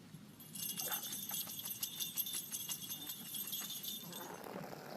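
Small bells jingling with rapid repeated shakes for about three and a half seconds, then stopping.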